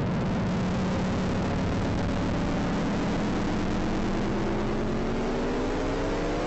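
Space radio emissions converted into audible sound: a steady hiss under a low hum of several tones, which begins a slow upward glide in pitch about five seconds in.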